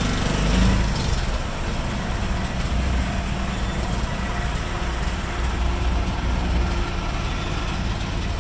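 Auto-rickshaw's small engine running steadily, heard from inside the open cab, mixed with street traffic noise from a bus and other vehicles close alongside. A louder, noisier surge comes in the first second.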